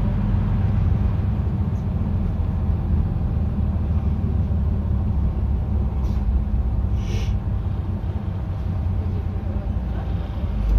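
Inside a city bus: the engine runs with a steady low rumble, and a short hiss of air comes about seven seconds in.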